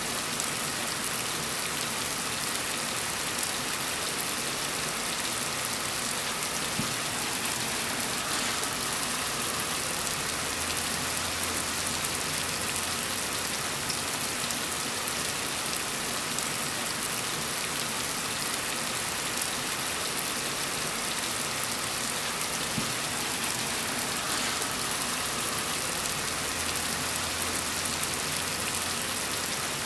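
Heavy rain falling steadily: an even, unbroken hiss of many drops.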